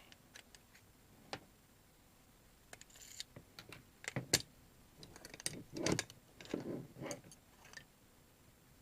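Scattered small clicks and taps of metal and plastic parts as a Colt 1911 airsoft pistol is stripped down by hand, with a cluster of louder knocks a little past the middle.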